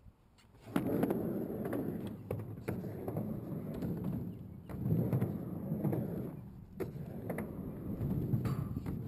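Skateboard wheels rolling on a mini halfpipe, starting about a second in: a loud rumble that swells and fades as the rider goes back and forth between the ramp walls, with sharp clacks of the board against the ramp.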